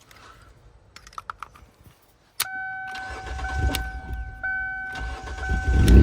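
Keys clicking in the ignition of a Kia Sportage, then a steady dashboard warning tone comes on about two and a half seconds in as the ignition powers up, and the engine cranks and starts, its rumble building toward the end. It is the first start after a corroded ignition-1 power wire was repaired.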